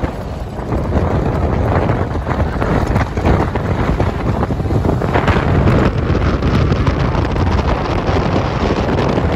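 Wind buffeting the microphone over the steady rumble of a safari vehicle driving on a dirt road.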